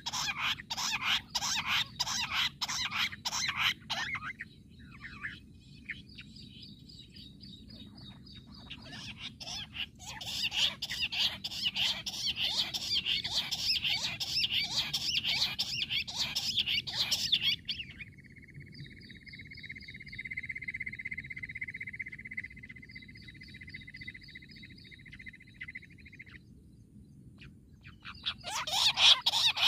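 Jungle bush quails calling: spells of loud, rapid, chattering notes run together in a chorus, at the start, from about ten to eighteen seconds in, and again near the end. Between the spells a fainter steady high note holds for several seconds.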